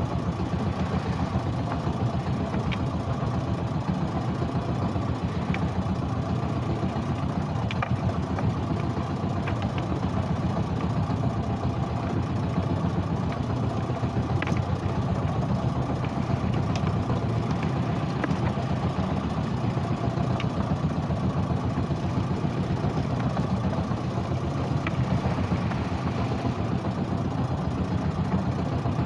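Small fishing boat's engine running steadily, with a few faint clicks scattered through.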